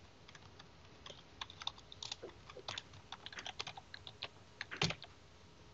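Typing on a computer keyboard: a run of irregular keystrokes, the loudest one near the end.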